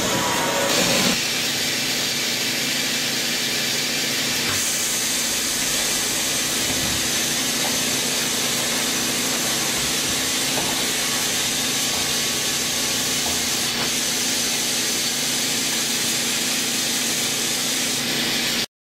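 OKK HM80S horizontal machining center running, a steady hiss over a low steady hum, which cuts off suddenly near the end.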